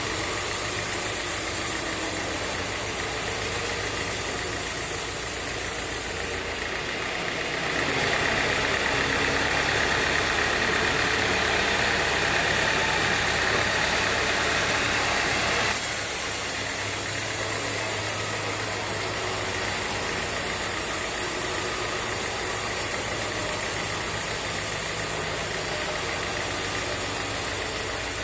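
Sawmill band saw running steadily. From about eight seconds in, for about eight seconds, it gets louder with a strong high hiss as the blade cuts through the teak log, then drops back to idle running.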